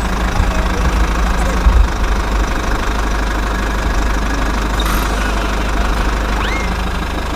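Engine running steadily with a dense low rumble, typical of construction machinery.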